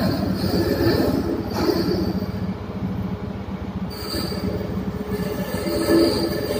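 Ship's hydraulic steering gear running under emergency local control: a steady machinery hum with a high whine that comes and goes as the control lever is worked by hand.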